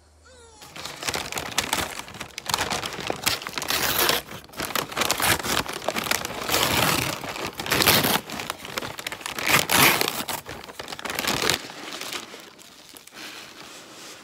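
Kraft paper takeout bag crinkling and rustling as hands open it and pull out a hot dog. The rustling is dense and irregular, dying down to faint paper handling about three quarters of the way through.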